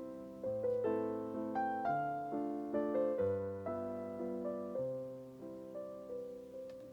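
Gentle background piano music, a slow melody of notes that each ring out and fade.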